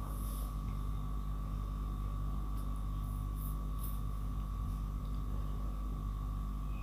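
Steady low electrical hum with a thin high tone and a light hiss: the recording's background noise, with nothing else happening.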